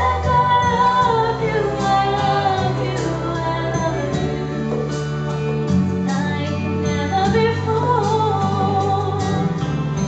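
A young woman singing solo into a microphone over a recorded backing track of sustained chords. Her voice holds long notes with vibrato.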